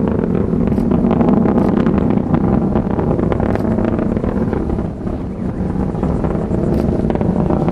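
Steady, loud roar of the Atlas V's RD-180 first-stage engine during ascent, dipping briefly about five seconds in.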